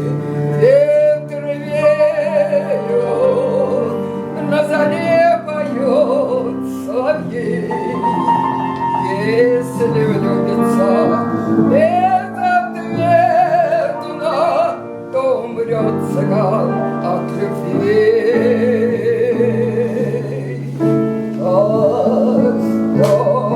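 A woman singing an operetta song in a trained voice with vibrato, over instrumental accompaniment.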